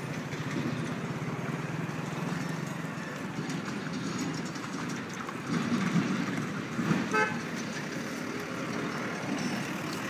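A motor vehicle engine running steadily, with a short horn toot about seven seconds in.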